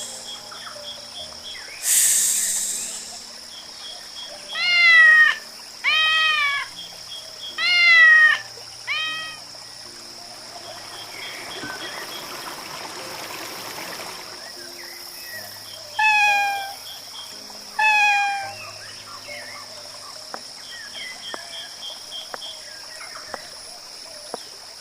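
Cat meowing: four meows in quick succession about five seconds in, then two more around sixteen and eighteen seconds, each rising and falling in pitch. A whoosh about two seconds in and a stretch of soft hiss midway are also heard.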